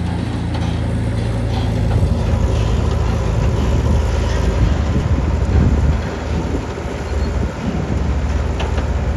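Backhoe loader's diesel engine running steadily, then working under changing load from about two seconds in, with heavy low rumbling noise mixed in.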